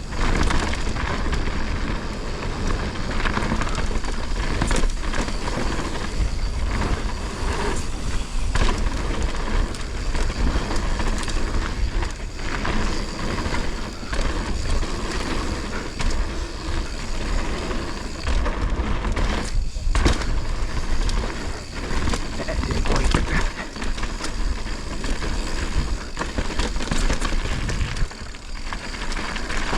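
Mountain bike descending a rough dirt trail at speed: wind buffeting the microphone, tyres on dirt, and the bike clattering and knocking over bumps, with a rattle the rider has not been able to trace.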